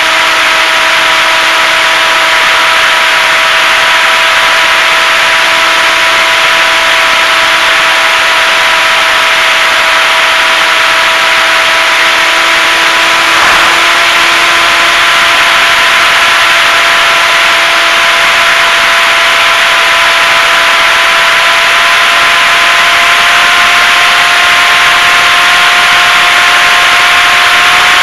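Electric motor and propeller of a HobbyZone Super Cub RC plane running steadily in flight, heard from a camera on the plane, a steady whine over loud airflow hiss. The whine's pitch creeps slowly upward.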